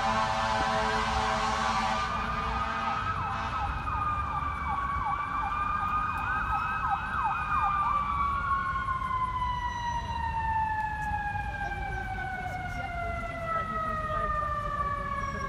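Emergency vehicle siren: a wailing tone with a fast warbling stretch, then a long slow fall in pitch as it winds down. A steady horn sounds until about two seconds in.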